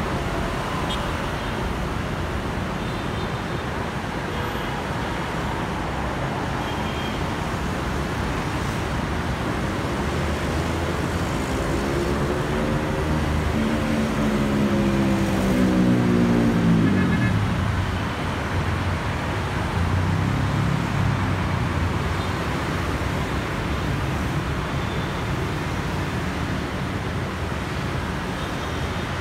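Steady road traffic from a busy multi-lane street, mostly motorbikes and scooters with cars among them. About halfway through, a heavier vehicle passes close: its engine note swells, is loudest, then drops in pitch as it goes by. Another vehicle passes a few seconds later.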